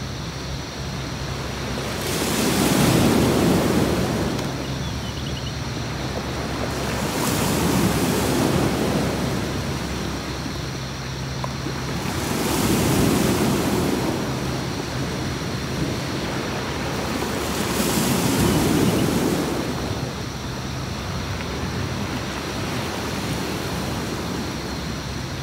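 Sea waves breaking and washing on a beach, the surf swelling four times at about five-second intervals over a steady wash.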